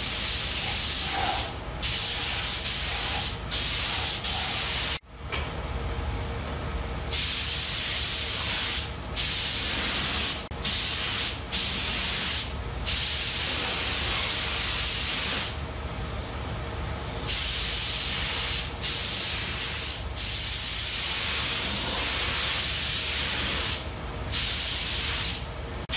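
Compressed-air gravity-feed paint spray gun spraying a coat of paint onto an engine block: a loud, steady hiss in runs of one to a few seconds, broken by short pauses as the trigger is let go and squeezed again.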